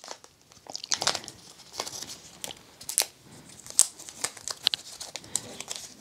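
Thin protective wrap being peeled and crinkled off a new AirPods Pro 2 charging case: irregular crackles and sharp crinkles, the loudest about a second, three seconds and four seconds in.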